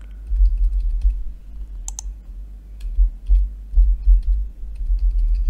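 Typing on a computer keyboard: an irregular run of quick key clicks, a couple of them sharper about two seconds in, over a low rumble.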